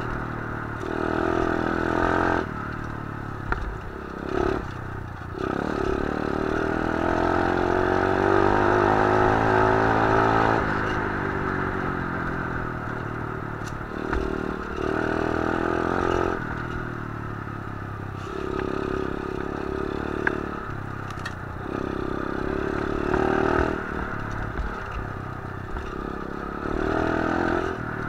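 125cc pit bike's single-cylinder engine revving up and down as it is ridden over a dirt trail. Its pitch climbs steadily for several seconds around the middle and then drops, and there are sharp knocks from the bike jolting over the rough ground.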